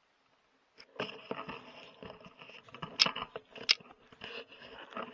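Handling noise close to the microphone: irregular rustling and knocking that starts about a second in, with two sharp clicks about three and four seconds in.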